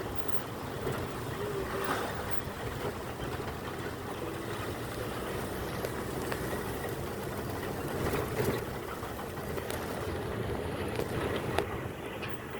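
Steady noise of a car driving on a wet road: engine and tyre noise.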